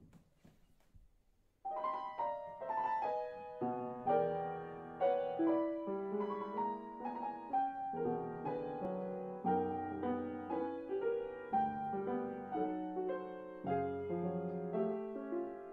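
Solo piano music: a melody of single notes in the middle register comes in a little under two seconds in, and lower notes join about two seconds later, playing on in an even, unhurried pattern.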